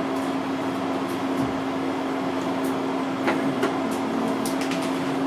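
Steady room hum and hiss, with one constant low tone, and a few faint ticks about three to four and a half seconds in.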